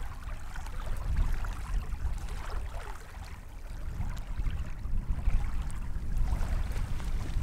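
Wind noise rumbling on the microphone, over small wavelets lapping and washing at the water's edge.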